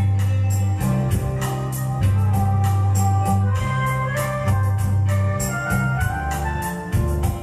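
Instrumental music: an electronic keyboard plays a melody in an organ-like voice over a heavy bass line and a steady drum beat.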